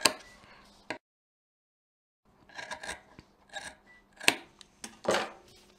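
Scissors cutting glitter fabric in several short snips as a cuff piece's edge is trimmed to match the others. There is a second or so of complete silence about a second in.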